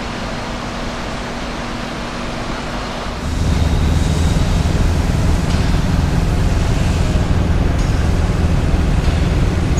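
A steady, even hiss for about the first three seconds, then, louder, a forklift engine running with a low rumble as it carries a heavy pallet load.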